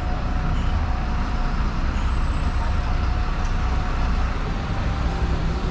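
City street traffic: a steady low engine rumble from road vehicles, with a faint steady whine above it.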